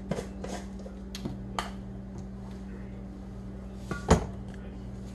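Light clicks and taps of seasoning containers being handled on a kitchen counter, then a cupboard door knocking shut about four seconds in, over a steady low hum.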